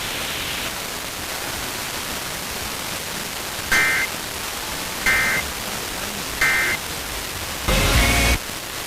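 Emergency Alert System end-of-message data bursts: three short two-tone digital warbles, about 1.4 s apart, over steady radio hiss, the 'NNNN' code that closes an alert. Near the end comes a brief, louder burst of harsh noise with a low thud.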